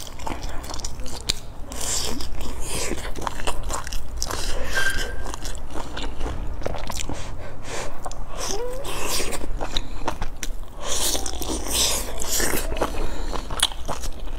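A person biting into and chewing soft stuffed buns, with many short mouth clicks throughout.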